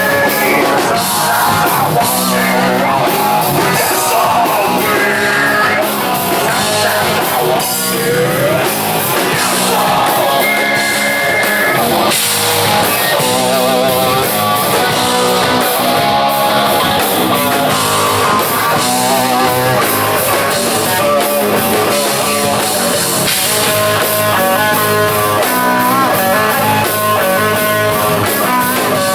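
Rock band playing live, with guitar and a singer, loud and steady throughout.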